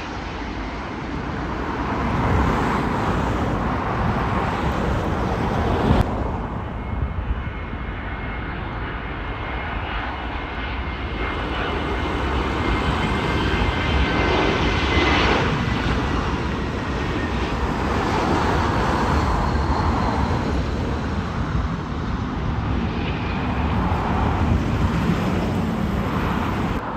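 Jet airliner engine noise: a Boeing 757 rolling down the runway, then, after an abrupt cut about six seconds in, an Airbus A321 on final approach and landing. The engines give a continuous rumble and rushing hiss, with a faint high whine that slides slowly down in pitch through the middle.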